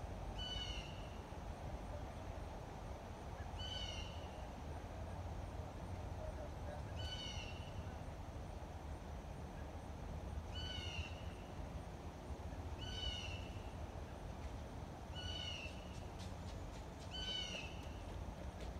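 A bird calling over and over: a short, high call repeated seven times, every two to three and a half seconds, over steady low outdoor background noise.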